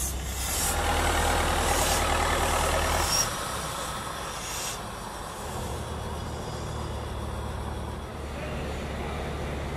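Small diesel shunting locomotive's engine running steadily, with a few short hisses of air in the first half. The sound drops in level about three seconds in.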